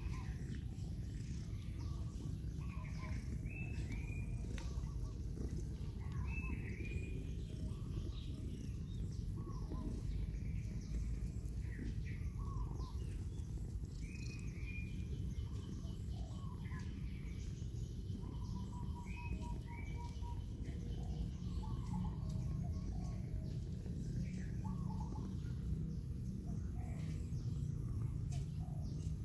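Birds chirping on and off in short calls, with one brief trill of quick repeated notes, over a steady low background rumble.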